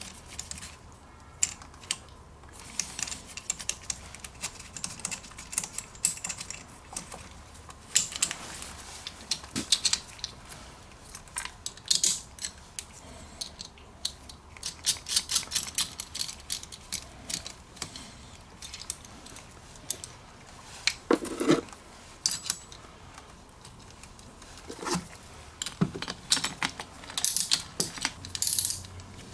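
Scattered metallic clicks, taps and rattles as a new battery terminal clamp is handled and fitted onto a car battery cable with hand tools, with a few heavier knocks in the second half.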